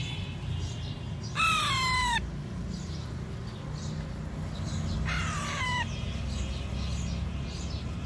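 Baby Alexandrine parakeet giving two short calls, each falling in pitch, about three and a half seconds apart, over a low background hum.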